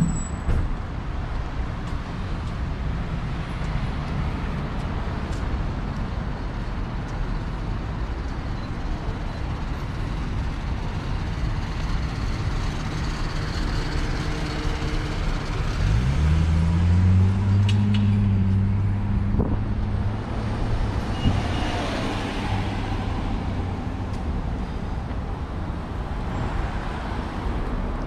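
Street traffic: a steady hum of cars, with one car's engine rising in pitch as it accelerates about halfway through and holding for a few seconds, followed by the swish of a car passing.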